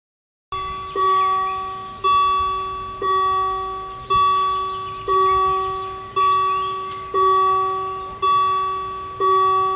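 Level-crossing warning bell ringing, one ding about once a second, each stroke ringing out before the next. It starts about half a second in and signals an approaching train, with the barriers about to lower.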